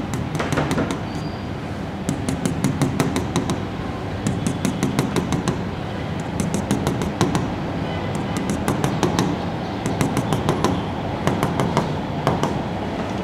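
Pen tip tapping and stroking on an interactive whiteboard as short dashes are drawn: runs of quick clicks, a few runs spread through the stretch, over a steady low room hum.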